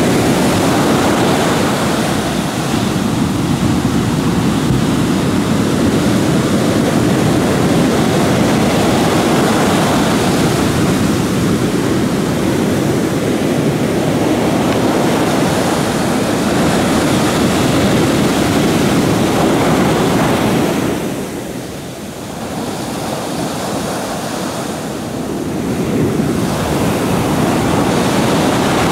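Heavy surf breaking and churning against the wooden hull of a wrecked fishing boat, a loud, steady rushing that eases for a couple of seconds about three quarters of the way in.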